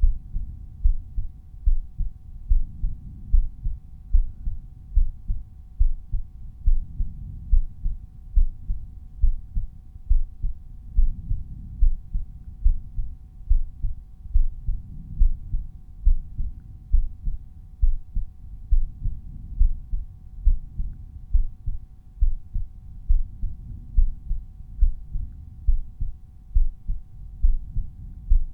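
A resting human heartbeat heard at the aortic auscultation point. It beats regularly, each beat a dull low lub-dub pair of thumps.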